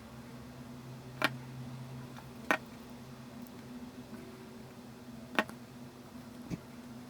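Four sharp, irregularly spaced clicks of small hard objects being handled, over a steady low electrical hum.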